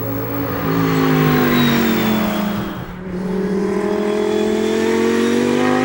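Audi R8 LMS Ultra GT3 race car's V10 engine. The revs fall for a couple of seconds, there is a brief dip about three seconds in, then the revs climb steadily as the car accelerates.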